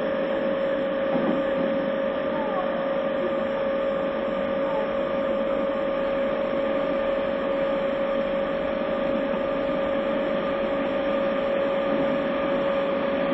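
Running noise inside a Tobu 30000 series subway train car, heard through a phone recorder: a steady rumble with one constant hum held at a single pitch.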